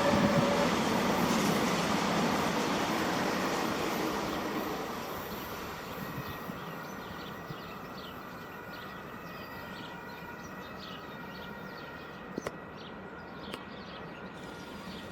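A train rolling past on the tracks and fading away over the first five seconds or so. Birds chirp over the quieter background that follows, with a few sharp clicks near the end.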